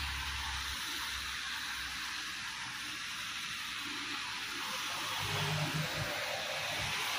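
Heavy rain falling, a steady hiss, with a low hum coming in briefly a little past the middle.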